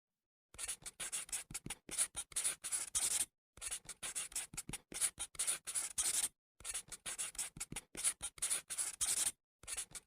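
Writing-on-paper sound effect: quick, scratchy strokes of writing or scribbling. It comes in three runs of a few seconds each, cut apart by short silences, and a brief fourth run starts near the end.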